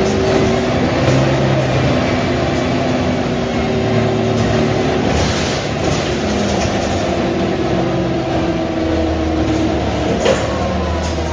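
Mercedes-Benz O345 city bus running under way, its engine note stepping between pitches over a steady rattling rumble. A sharp knock about ten seconds in.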